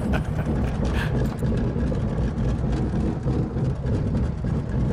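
The Fox Moth's de Havilland Gipsy Major engine ticking over at idle with power off, a steady low rumble, as the biplane rolls out on a grass strip just after a three-point touchdown.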